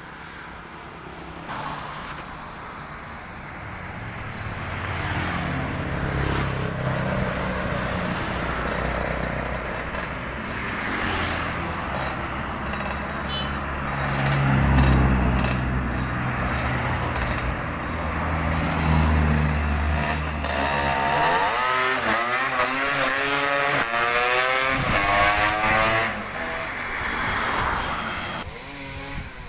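Racing Vespa scooter engine running, getting louder over the first few seconds. In the second half it is revved up and down again and again, the pitch rising and falling with each blip of the throttle, as during tuning.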